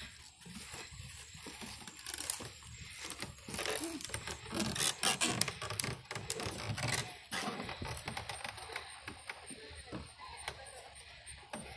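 Footsteps on wooden planks and decking: a run of irregular knocks and clicks, densest and loudest in the middle.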